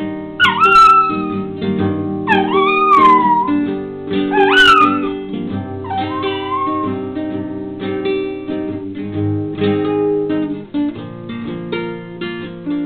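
Maltese puppy howling along to a strummed and plucked acoustic guitar: four short swooping howls in the first seven seconds, each rising then sliding down in pitch, then the guitar playing on alone.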